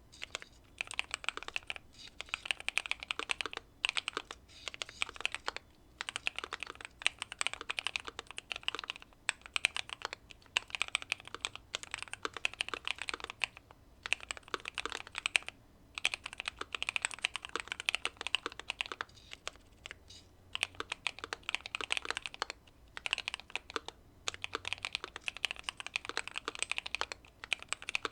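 Keychron Q2 mechanical keyboard with factory-lubed Pearl Lemon switches, tape-modded and case-foamed, being typed on in fast runs of key strokes broken by short pauses every couple of seconds.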